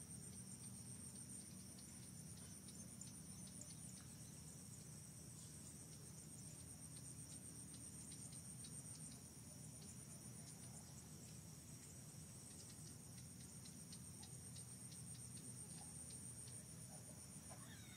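Faint, steady high-pitched chorus of insects trilling, with a low steady hum underneath.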